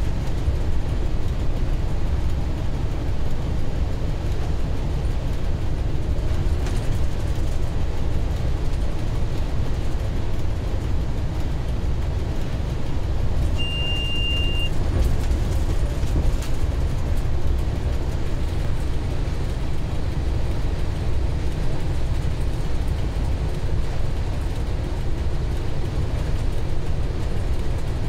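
Steady low rumble of an M62 diesel locomotive's two-stroke V12 engine and its wheels on the rails, heard inside the driver's cab while running light at about 100 km/h. About halfway through, a short high-pitched beep sounds for about a second.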